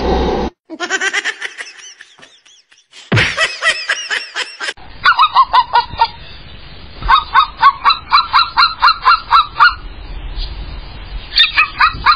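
Birds giving runs of short, repeated honking calls, about four a second, in bouts that stop and start across several short clips cut together.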